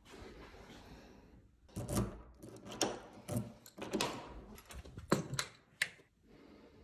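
A hotel room door being handled and opened: a string of clicks and knocks from the round doorknob and latch, the sharpest three near the end.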